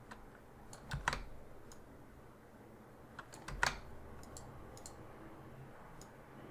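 Scattered clicks of a computer mouse and keyboard, with a louder close pair of clicks about a second in and another loud click a little past halfway.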